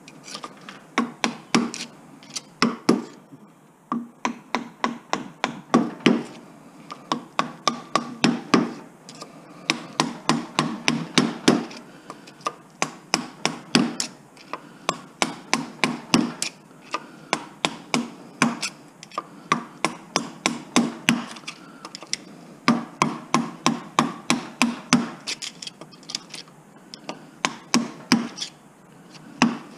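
Hammer blows on a metal punch, in quick bursts of several strikes about four a second with short pauses between, driving copper windings out of the slots of an electric motor stator.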